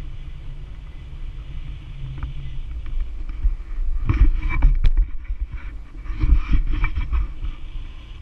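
Rushing airflow buffeting the camera microphone in paraglider flight: a gusty low rumble, with stronger gusts around the middle.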